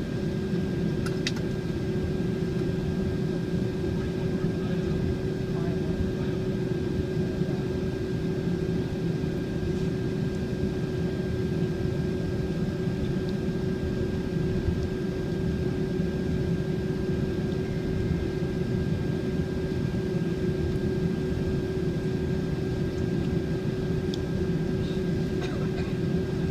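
Steady cabin noise inside a Boeing 767-400ER taxiing on the ground, its engines at low taxi power, with a constant low hum and a thin high whine over the rumble.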